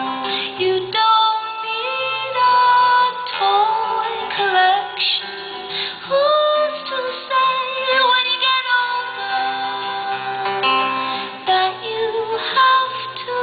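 Live music: a woman singing a melody over plucked guitar accompaniment.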